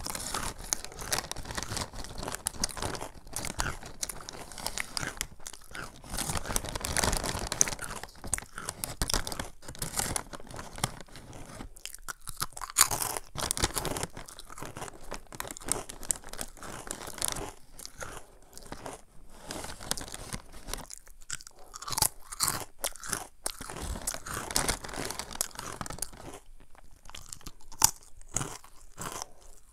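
Crunching and chewing of crispy churro-shaped snack pieces (Samyang Jjanggu churros), with irregular crackling bites one after another.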